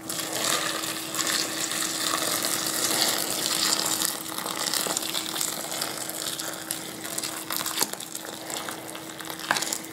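Boiling water poured from a saucepan into a stainless steel bowl of broken dried chili peppers: a steady splash and gush that thins out near the end.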